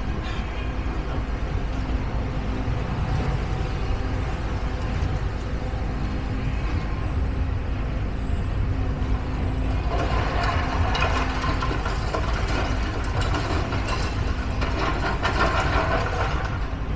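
A heavy engine running steadily with a low rumble and a constant hum. Harsher, busier noise joins about ten seconds in and again near the end.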